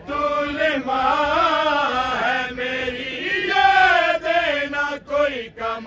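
A man chanting a manqabat, devotional verse in praise of Imam Hussain, in long wavering melodic phrases with short breaks between them.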